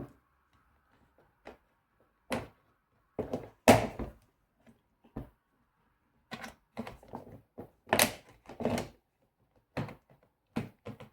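A screwdriver prying at the hard plastic tabs of a ratchet-strap package. A string of irregular sharp clicks and knocks, metal scraping and snapping against plastic, some in quick clusters.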